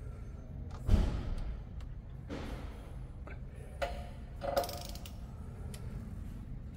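Metal hand tools on the front brake caliper of a BMW R1200GSA LC as a fastener is tightened: a sharp knock about a second in, then a few scattered mechanical clicks and clinks, two of them ringing briefly.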